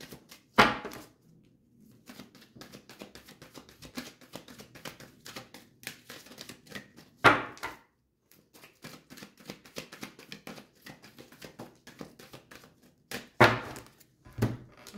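A deck of oracle cards being shuffled by hand: a quick, uneven patter of card clicks, with three louder brief bursts about six seconds apart.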